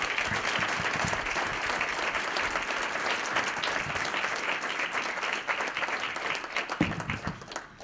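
A roomful of seated dinner guests applauding, a steady dense clapping that thins out near the end.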